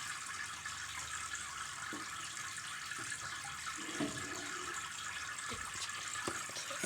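Steady trickle of running water from a home fish tank, with a few faint knocks.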